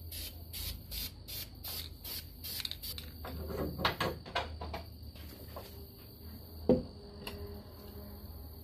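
An aerosol spray-paint can sprayed in short, quick bursts, about two or three a second, then the raised hood of a Jeep JK is handled and lowered, with rattling and one sharp knock about seven seconds in.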